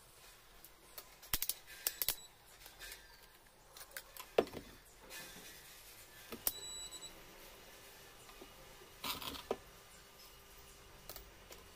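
Handling noise from a handheld digital multimeter and its test leads on a metal hot plate: a series of irregular sharp plastic clicks and knocks as the meter is set down and the leads and probes are moved.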